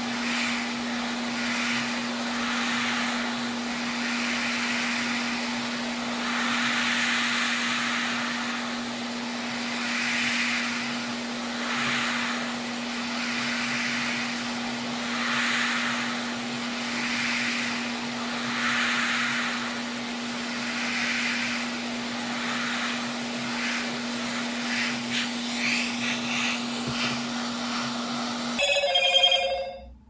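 Hot air rework station blowing: a steady low hum under an airy hiss that swells and fades every second or two. It cuts off shortly before the end.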